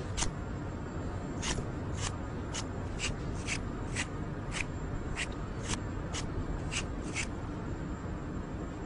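A hand striking a watermelon's rind in quick sharp taps, about a dozen of them at roughly two a second, stopping about a second before the end.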